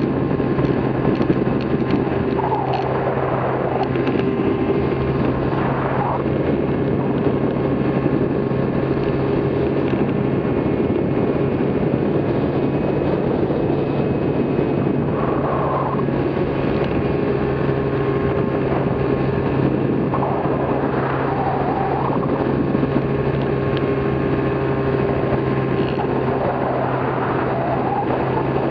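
Flycycle Mark 5 powered hang-glider trike in flight: its small engine and pusher propeller run at a steady drone, with wind rushing over the microphone.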